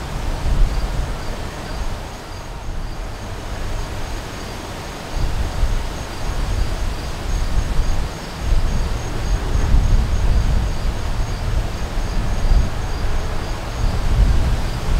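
Gusting wind buffeting the microphone with a rumble that swells and eases, under a steady, evenly pulsed high chirping of insects.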